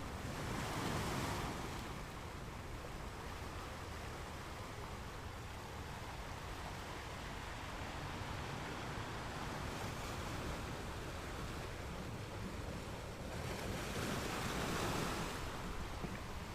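Ocean surf: a steady wash of waves with two louder breakers, one near the start and one about fourteen seconds in.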